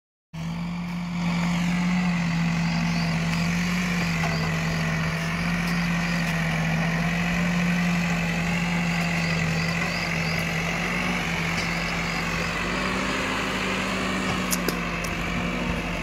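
Diesel engines of a JCB 3DX backhoe loader and tractors running steadily, a constant low engine drone. A few light clicks come near the end.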